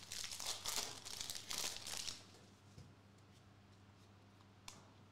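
Foil wrapper of a Prizm soccer trading-card pack crinkling as it is torn open, for about the first two seconds, then stopping. After that it is quiet but for a sharp light tick near the end as the cards are handled.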